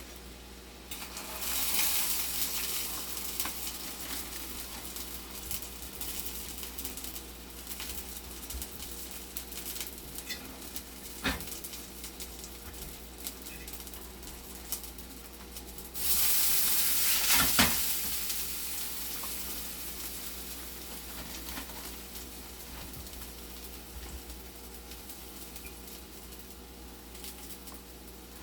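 Hot cooking oil in a frying pan sizzling. It flares loudly twice, about a second in and again about 16 seconds in, as food goes into the pan, and each time settles back to a steady lighter sizzle. A few sharp utensil knocks on the pan come in between.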